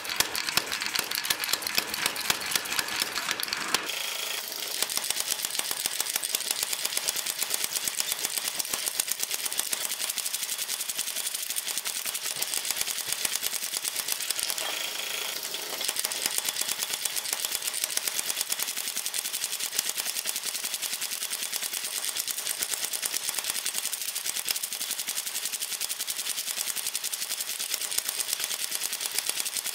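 Mechanical power hammer pounding a hot iron bar with rapid, steady blows, drawing the bar out between its dies.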